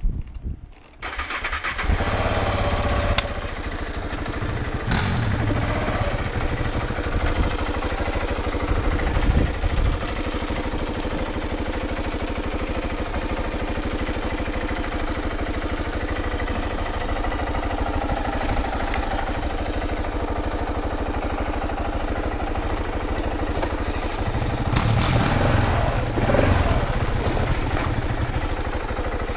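KTM 690 Enduro R's single-cylinder engine starting about a second in, then running, with a few blips of the throttle in the first ten seconds, a steady stretch and more revving near the end.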